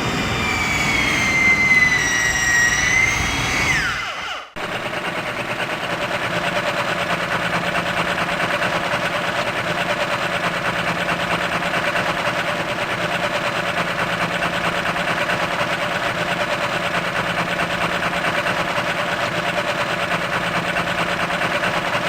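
Dubbed-in comedy sound effects. A mechanical whine dips and rises in pitch, then drops and cuts off about four seconds in. A steady, machine-like running noise with a fast flutter follows and continues until just before the end.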